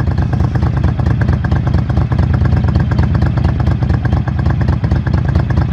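Motorcycle engine idling steadily, a fast even run of exhaust pulses.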